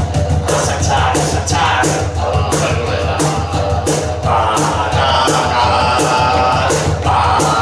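Live band playing loud rock music: regular drum hits over a steady bass, with a sustained pitched line coming in about four seconds in.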